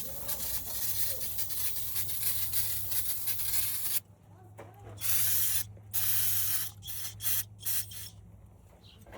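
Aerosol spray can hissing: one continuous spray for about four seconds, then a pause and several short bursts.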